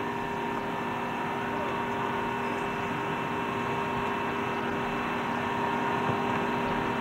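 Steady whine and rumble of the KC-135's jet engines idling on the ground, with several held tones over an even roar that swells slightly, heard through an open hatch. A sharp click right at the start.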